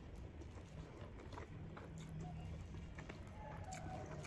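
Faint chewing with small wet mouth clicks from someone eating rice and latoh (sea grapes), over a low steady hum.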